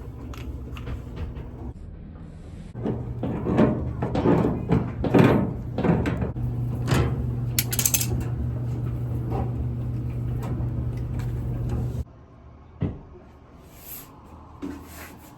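Repeated knocks and clatter, like handling doors, panels or tools, over a steady low hum that cuts off suddenly about twelve seconds in; a few fainter knocks follow.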